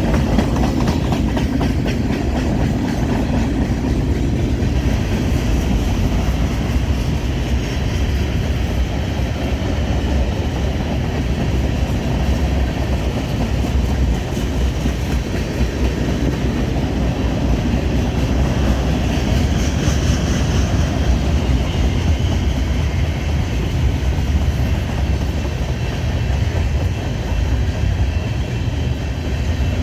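Cars of a BNSF manifest freight train rolling past: a loud, steady rumble of steel wheels on the rails.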